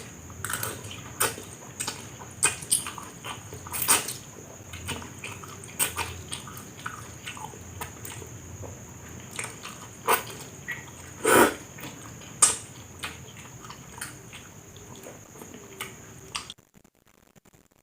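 Close-up mouth sounds of eating wet noodles and jelly: irregular wet chewing clicks and lip smacks, with a faint steady high whine behind them. The sound drops to near silence about a second before the end.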